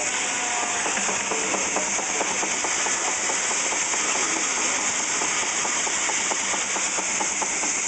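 8 hp Russell portable steam engine running belted to a sawmill: a steady hiss with a quick, even beat.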